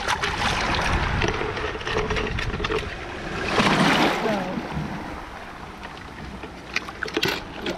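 Shallow seawater washing and splashing at the shoreline, with a louder surge of splashing about three and a half seconds in as a small wave rushes in.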